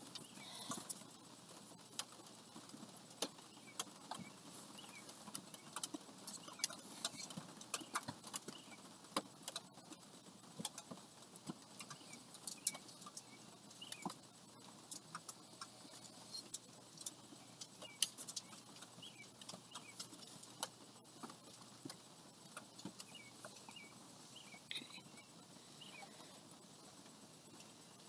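Faint, scattered light taps, clicks and rustles of a perforated card and strands of yarn being handled and sorted.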